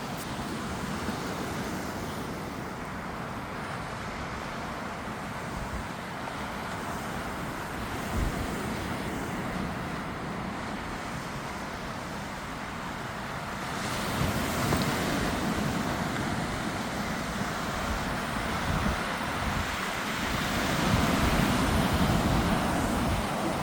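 Sea waves breaking and washing on a beach, with wind buffeting the microphone; the surf swells louder about two-thirds of the way through and again near the end.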